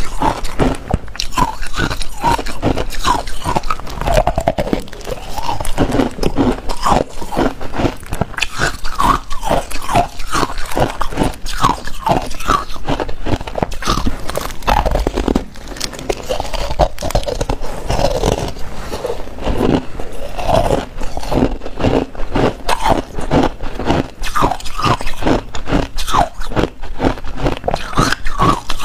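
Hard ice being bitten and chewed: a rapid, continuous run of sharp, crackling crunches, close to the microphone.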